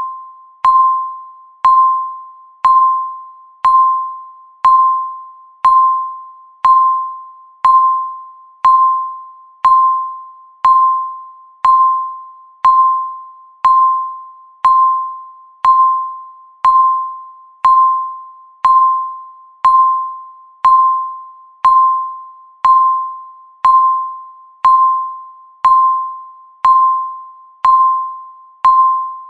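Countdown timer beeping once a second: a single clear electronic tone that starts sharply and fades away over most of the second, repeated evenly about thirty times.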